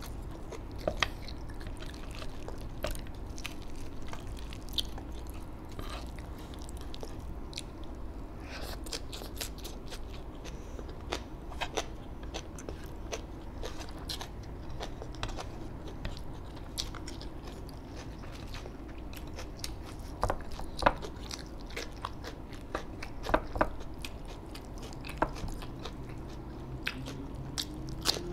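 Close-miked eating: a person chewing and taking crunchy bites of food, with irregular sharp crunches over a low steady hum.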